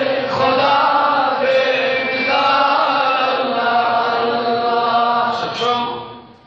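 A man chanting a Kashmiri naat into a microphone, in long, held melodic lines. The voice fades out near the end.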